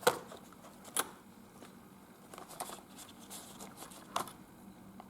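Packaging being handled: a few sharp clicks and taps, at the start, about a second in and just past four seconds, with light rustling between.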